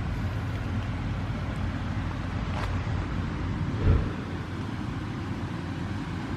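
Engine of a Yanmar 850 rice combine harvester running steadily with a low hum while it works. A dull thump about four seconds in.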